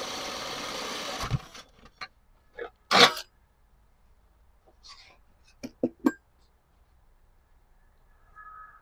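Power drill with a hole saw running steadily as it finishes cutting through a sheet-steel transmission tunnel panel, stopping about a second and a half in. It is followed by a series of sharp metallic knocks and clicks as the drill and panel are handled, the loudest about three seconds in.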